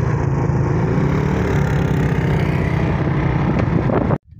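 70cc single-cylinder motorcycle engine running steadily under way on a sand track, with wind noise on the microphone. The sound cuts off abruptly near the end.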